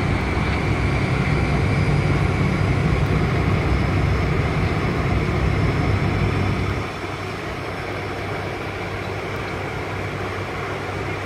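Steady cockpit noise of an ATR 72-600 in flight: the drone of its twin turboprop engines and propellers under a rush of air. The low drone drops away suddenly about seven seconds in, leaving a quieter steady hiss.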